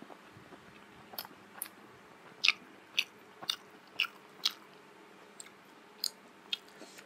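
Chewing a mouthful of food, with short wet mouth smacks about twice a second, thinning to a few scattered ones near the end.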